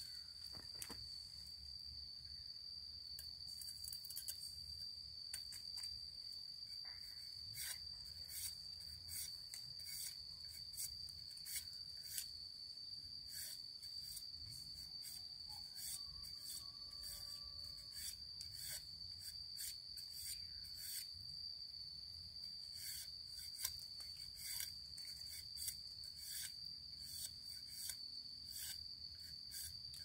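A steady high-pitched insect drone, with short scraping strokes of a machete blade whittling a thin stick coming irregularly throughout.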